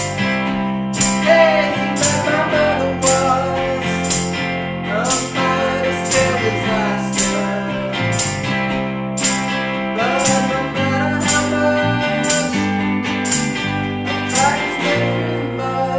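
Indie rock band playing: hollow-body electric guitar and bass guitar, with a tambourine struck about once a second.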